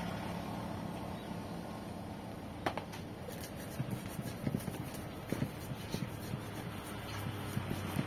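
Stone pestle knocking and grinding against a stone mortar (Indonesian cobek and ulekan) as coarse rujak sauce ingredients are crushed by hand: irregular knocks, one to two a second, starting about three seconds in, over a steady low background hum.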